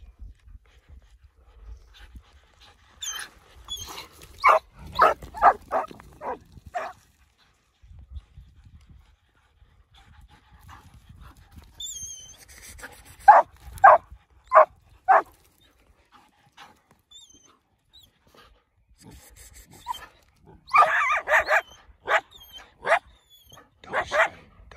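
Canine barking in three quick runs of four to six barks each, with some high wavering yelps just before each run.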